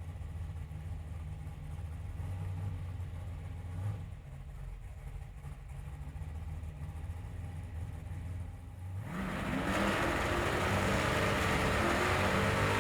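Car engine running low and steady, then about nine seconds in revving up and growing louder as it accelerates.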